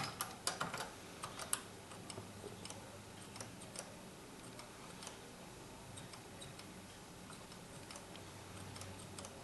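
Keys clicking on an Apple II keyboard in the first second and a half, then faint scattered ticks over a low steady hum.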